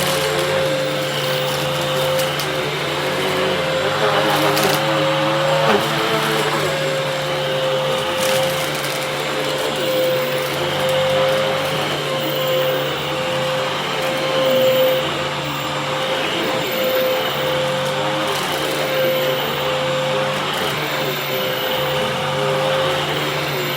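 Upright Hoover vacuum cleaner running steadily, its motor giving a steady whine over a lower hum, with a few brief clicks. The owner goes on to find the machine clogged, with far weaker suction than a Hoover should have.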